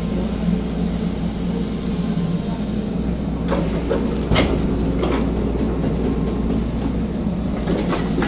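Excavator diesel engine running steadily under digging load, with a few short knocks, the sharpest about four seconds in.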